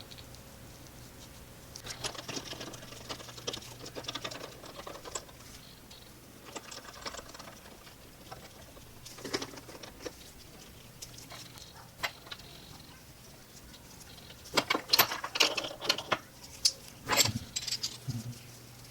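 Small brass and aluminium vise-stop parts being handled and fitted together by hand: scattered light metallic clicks and clinks, with a quicker run of sharper clinks in the last few seconds, over a faint steady hum.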